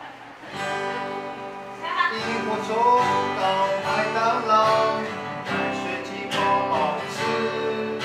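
Acoustic guitar being played, with a voice singing a melody over it.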